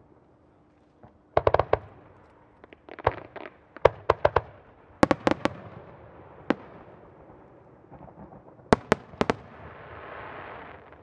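Aerial firework shells bursting overhead: clusters of sharp bangs, several in quick succession, coming every second or two. A rushing hiss swells near the end.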